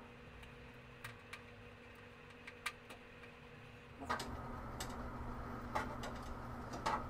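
Faint scattered clicks and taps of hands handling the sheet-metal side panel of a Da Vinci 1.0 3D printer, a few in the first half and more in the second, over a low steady hum.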